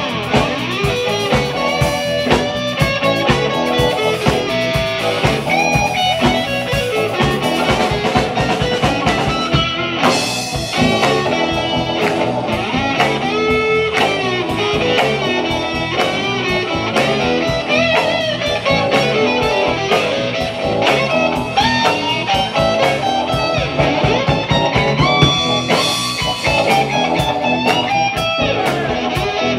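Live blues-rock band playing an instrumental passage: electric guitar lines over a steady drum-kit beat.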